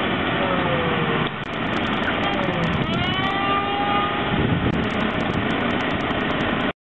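A pressure washer spraying at low pressure and a shop vac sucking up the water, both running together in a steady, loud mix. About three seconds in, a whine rises and then holds steady. The sound cuts off abruptly just before the end.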